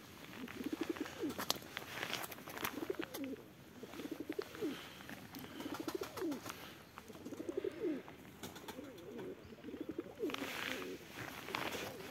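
A flock of domestic pigeons cooing, one pulsing call after another overlapping, with many sharp ticks of beaks pecking at gravel. There is a brief rustle about ten seconds in.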